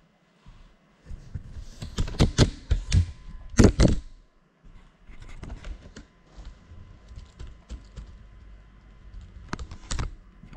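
Irregular clicks and knocks of a hand handling a landed FPV drone and its GoPro, picked up close by the camera's own microphone. The loudest cluster of knocks comes about two to four seconds in, with lighter ticks after and another knock near the end.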